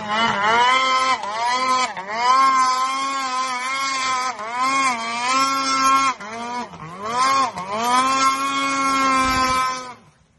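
Snowmobile engine revving hard as the sled ploughs through deep powder snow, its pitch dipping and climbing again and again as the throttle is worked. The sound cuts off suddenly near the end.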